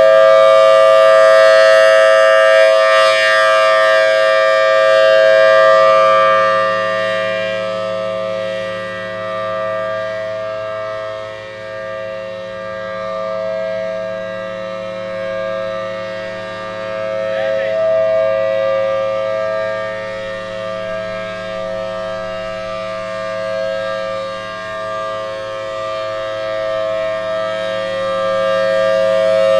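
Federal Signal Thunderbolt civil defense siren sounding a steady alert tone at one held pitch. It is loud, fades slowly after a few seconds and swells back near the end as the rotating siren turns away and back.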